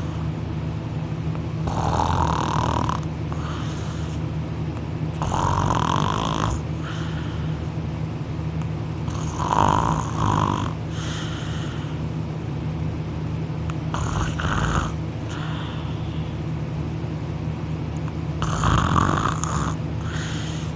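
A young man snoring loudly while sleeping on his back with his mouth wide open: a harsh, rasping snore about every four seconds, five in all, some drawn in two parts.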